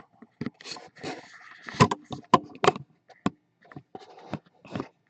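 Irregular knocks, taps and brief rubbing or scraping of objects being handled on a hard surface, with the sharpest knocks a little under two seconds in and a few more just after.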